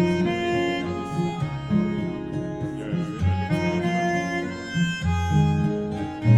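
Recorded music played back over a hi-fi system driven by Luxman B-100 Centennial amplifiers: an instrumental passage with guitar and bowed strings over a moving bass line, with no singing.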